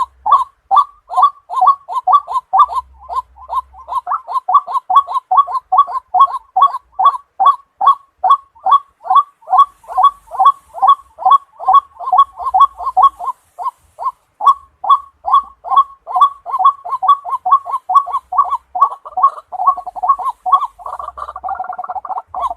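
White-breasted waterhen calling: a long, monotonous series of short croaking notes, about three a second. Near the end the calls crowd together and overlap.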